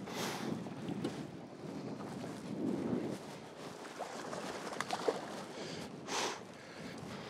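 Wind buffeting the microphone and choppy water slapping around a boat. A hooked bass thrashes at the surface beside a landing net, giving short bursts of splashing, the clearest about six seconds in.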